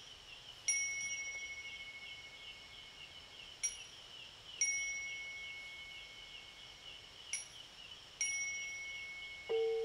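A small high-pitched bell struck in pairs about every three and a half seconds; the second stroke of each pair rings on and fades. Under it runs a steady, fast-pulsing trill of insects. Near the end, gamelan metallophones come in with low ringing notes.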